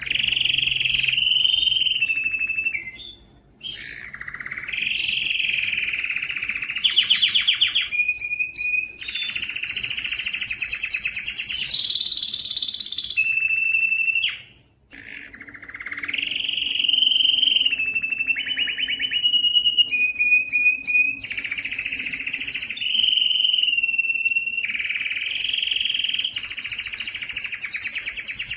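A canary singing a long, almost unbroken song of fast trills and rolling, warbling phrases, pausing briefly twice.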